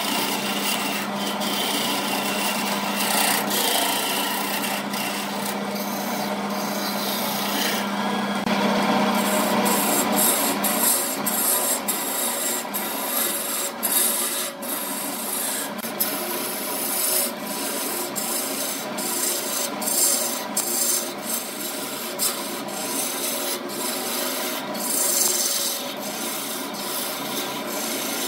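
Turning chisel cutting into a spinning wooden vase blank on a BURT wood lathe: a continuous rough scraping and shaving noise, broken by frequent short scratchy ticks. A low steady hum under it fades out about ten seconds in.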